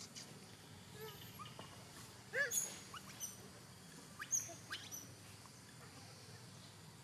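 Animal calls: a scattering of short, high-pitched chirps and squeaks. The loudest come about two and a half seconds in and again just past four seconds.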